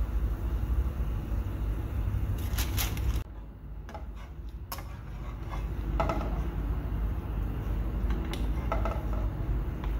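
A wire skimmer scrapes and clinks lightly against a frying pan as fried onions are scooped out of the oil and drained, over a steady low rumble. There are a few short ticks, and the rumble drops away for a moment about three seconds in.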